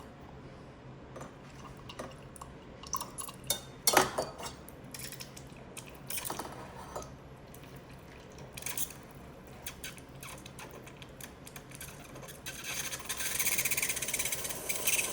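Scattered clicks and knocks of cups and a milk jug being handled, the sharpest about four seconds in. Near the end comes a steady, rushing liquid sound that grows louder.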